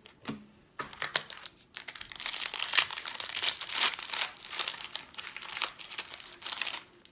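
Foil trading-card pack wrapper crinkling and tearing as it is opened, a few light rustles first, then a dense crackle lasting about five seconds.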